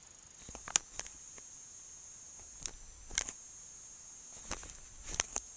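Paperback book being handled: a few short, faint crackles and rustles of its paper pages, scattered irregularly.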